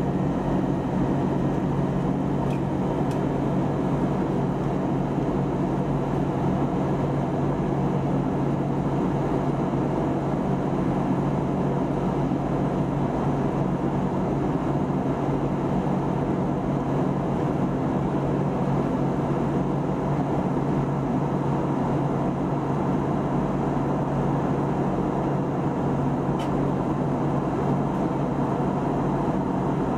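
Steady cabin noise inside an Airbus A320neo in flight: the even rush of airflow and engines, with a constant low hum.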